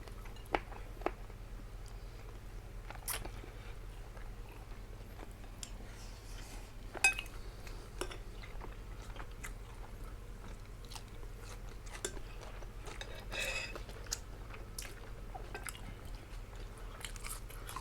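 People chewing and biting food close to the microphone, with scattered small clicks and crunches; one louder click comes about seven seconds in.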